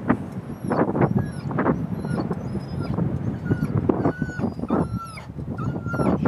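A dog whining in short, high-pitched whines, over irregular thuds of footsteps through heather and the rumble of wind on the microphone.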